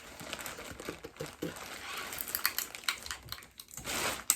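Rapid clicks and crinkling from seafood and its wrappings being handled while eating, with a sharp snap near the end.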